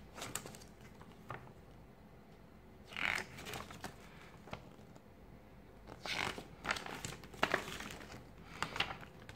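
Pages of a paper instruction manual being turned and handled: a few short rustles, one about three seconds in and several more between six and nine seconds in.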